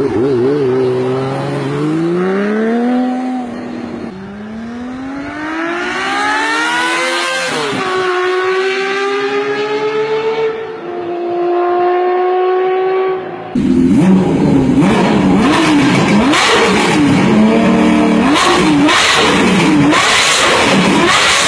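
Honda CBX 1050's inline six-cylinder engine accelerating hard, its pitch climbing and dropping back at each upshift, three or four times. About two-thirds of the way in it turns louder, with the revs rising and falling in quick blips.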